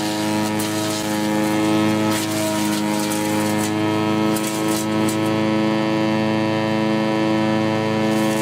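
Homemade wood chipper's motor running at a constant speed: a steady hum at one pitch, with a few faint ticks, and no surge from wood being fed.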